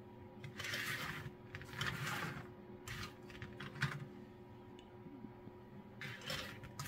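Loose 3D-printed plastic statue parts being handled and set down on a tabletop: rustling with light clicks and clatters, in several short bursts.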